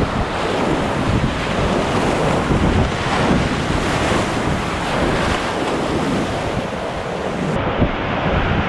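Whitewater rapid rushing and crashing around a kayak as its bow punches through breaking waves, with spray splashing close to the microphone and wind noise on it.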